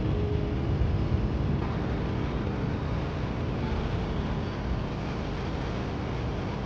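City street traffic noise: a steady rumble of passing vehicles.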